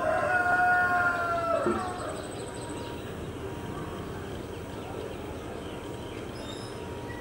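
A rooster crowing once: a long held call that falls away and ends a little under two seconds in. Steady background noise follows, with a few faint high bird chirps near the end.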